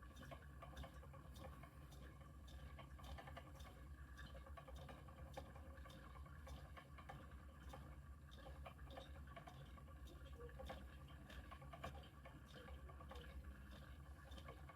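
Faint, fairly regular ticking of a treadle spinning wheel turning as it is pedalled, over a low steady hum.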